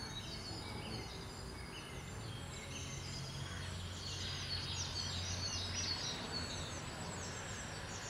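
Small birds chirping, many short high calls overlapping and growing busier about halfway through, over a steady low background noise.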